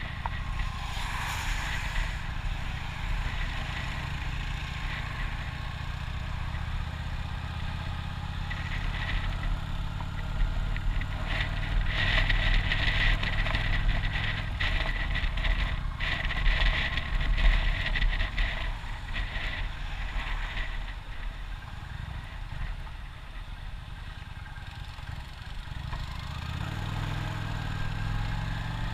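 Motorcycle engine running at road speed, heard from the rider's seat with rushing wind over the microphone; engine and wind get louder for several seconds in the middle.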